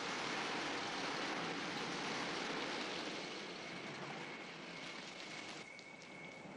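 A car driving slowly past on a dirt lane: engine and tyre noise swells over the first few seconds, then fades as it moves away. A thin, steady high tone runs underneath.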